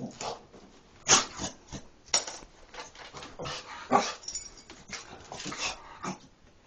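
A dog sneezing repeatedly in a series of short, sharp bursts, the loudest about one, two and four seconds in.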